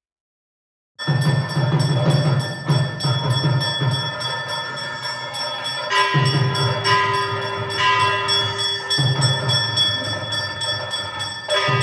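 Music with bells ringing: sustained bell tones over a quick, even ringing rhythm and a low pulsing beat. It starts abruptly about a second in.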